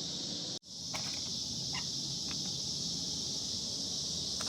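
Steady high-pitched background hiss with a few faint clicks. The sound drops out for a moment about half a second in.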